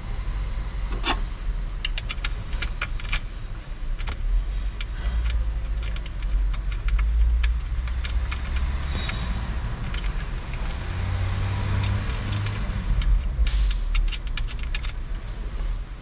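Irregular clusters of sharp metallic and plastic clicks and rattles from hand work on a steering column's parts, over a steady low rumble.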